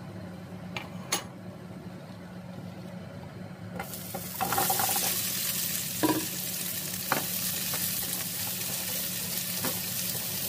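Red and yellow bell pepper pieces frying in hot oil in a nonstick frying pan, with a quieter sizzle that turns into a strong, steady sizzle about four seconds in. A few sharp clicks and knocks come from the spatula against the pan as the peppers are stirred.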